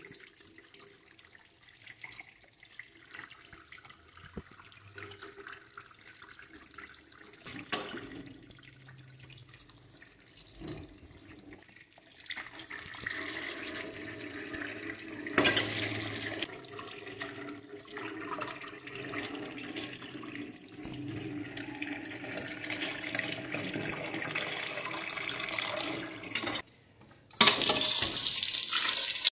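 Kitchen tap running into a stainless steel sink while raw pig offal is handled and rinsed in a metal bowl, with a few knocks against the bowl; the water becomes a steady rush from about halfway through. Near the end the tap fills an empty pressure cooker pot, much louder, then stops.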